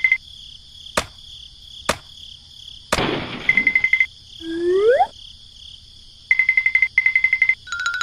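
Cartoon-style sound effects: a fast-pulsing electronic alarm beep, about ten pulses a second, sounding in short runs. Between the runs come three sharp knocks about a second apart, the last followed by a hiss, and then a quick rising whistle-like glide, all over a faint steady high-pitched buzz.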